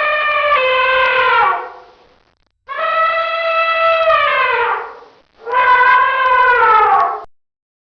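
Elephant trumpeting: three long, brassy calls with short gaps between them, each dropping in pitch as it ends. The first is already sounding at the start and stops after about a second and a half.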